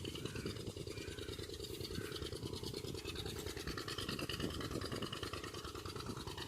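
Faint steady rustling with a low rumble that flutters rapidly throughout.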